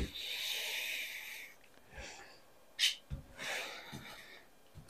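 A person moving right next to the microphone. There is a knock at the start, two stretches of breathy hiss, and a short sharp click about three seconds in.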